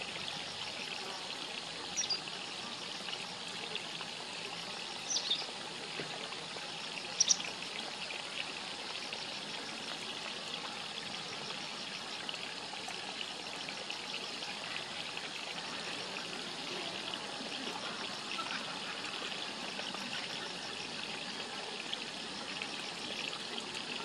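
Steady hiss of flowing water, with a small bird's short, high, falling call notes three times in the first eight seconds; these calls are the loudest sounds.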